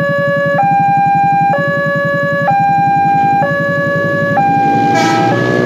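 Railway level-crossing warning alarm sounding two electronic tones that alternate high and low about once a second. Near the end, the noise of an approaching train rises under it.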